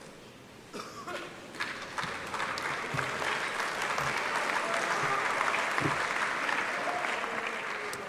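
Audience applauding. The clapping builds over the first few seconds, holds, and dies away near the end.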